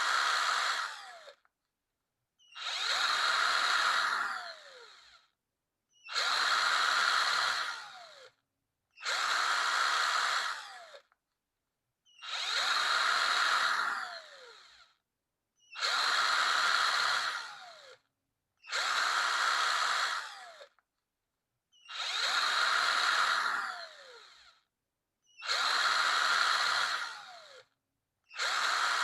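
Electric drill run in short bursts, about ten of them at roughly three-second intervals. Each burst is a high whine lasting about two seconds, and its pitch falls away as the trigger is released and the motor spins down.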